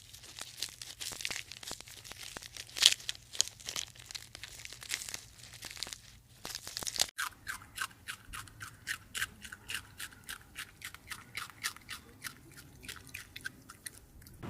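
Crunching, like an animal chewing crisp food: dense, irregular crunches, then after an abrupt cut about halfway through, a steadier run of crisp crunches at about four a second.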